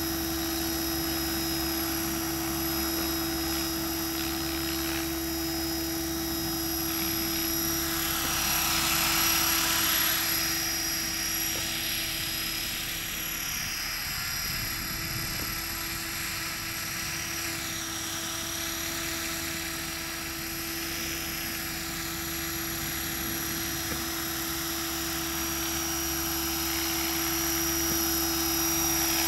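Align T-Rex 500 electric radio-controlled helicopter in flight: a steady whine from its motor and spinning rotors. The pitch slides up and down as it flies away across the field and comes back, louder about nine seconds in and again near the end as it comes close.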